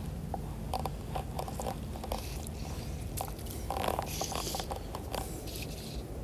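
Handling noise from fly-fishing tackle and clothing close to a body-worn camera: short clicks and scrapes as the fly line and reel are worked by hand, with a longer scrape about four seconds in. A steady low rush runs underneath.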